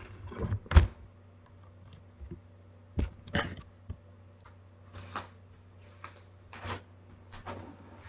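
A steady low hum, which the recordist takes for a food truck running outside, under a scatter of sharp clicks and brief rustles. The loudest click comes just under a second in, with more around three seconds and near the end.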